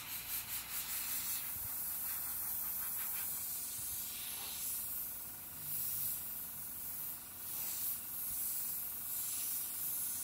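Cheap pistol-grip airbrush (a 0.3 mm Iwata Revolution clone) spraying paint: a steady hiss of air and paint that flutters rapidly for the first second and a half, then swells and dips as the trigger is worked.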